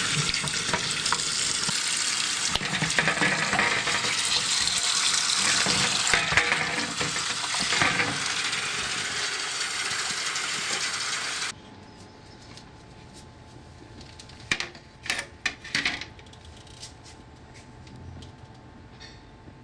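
A loud, steady hiss that cuts off suddenly about eleven and a half seconds in, followed by a few faint clicks and knocks.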